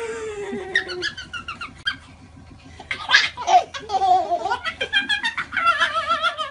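A baby laughing: a long falling squeal at the start, then quick, pulsing giggles through the rest.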